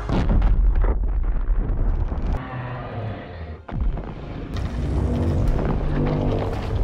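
Monster-movie sound effects: heavy explosive rumbling with blasts, dropping away briefly a little past the middle, then a low rumble returns with steady tones under it.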